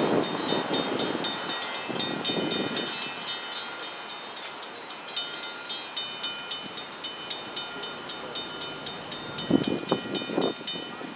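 Railroad grade-crossing warning bell ringing in rapid, evenly spaced strikes over the fading rumble of a train moving away; the bell stops near the end. A couple of louder sounds come about nine and a half seconds in.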